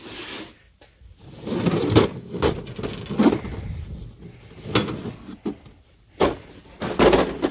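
Hard plastic tool cases being handled and shifted about in a metal tool locker, giving a run of irregular knocks, scrapes and clatters, busiest about two seconds in and near the end.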